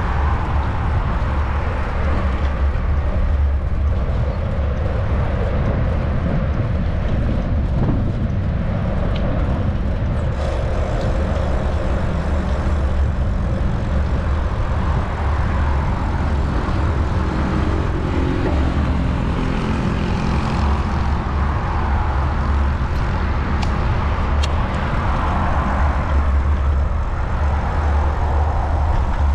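Road traffic on a city avenue: cars driving by, rising and fading over a steady low rumble, with two brief clicks about three-quarters of the way through.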